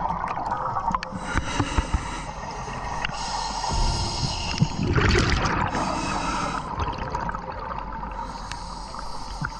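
Scuba diver breathing through a regulator underwater: repeated hissing inhalations, with a louder rush of exhaled bubbles about halfway through.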